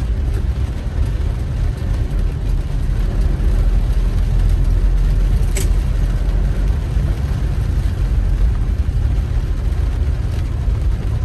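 Car driving: a steady low rumble of engine and road noise, with one short sharp click about five and a half seconds in.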